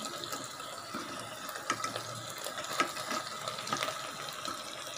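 A steel spoon stirring through cooked chicken and vegetable masala in a pot, with a few light scrapes and taps against the pot over a steady low hiss from the hot dish.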